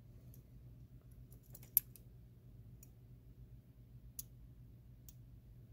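Faint, sparse metallic clicks of a lock pick working the pin stack of a Schlage mortise cylinder under tension, a few light ticks with the sharpest just under two seconds in and another about four seconds in, over a low steady hum.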